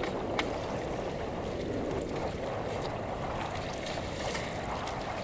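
Steady rushing of wind on the microphone and waves against a small wooden outrigger boat, with a few light ticks of a knife on a wooden cutting board as squid is chopped.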